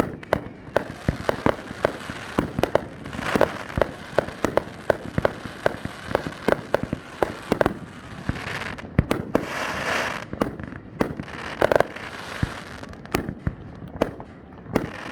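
Aerial fireworks going off in a rapid string of sharp bangs, several a second at times, with stretches of crackling hiss as shells burst overhead.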